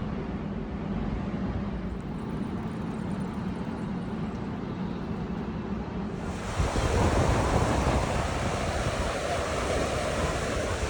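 Ocean surf with wind buffeting the microphone. About six seconds in it grows louder and fuller.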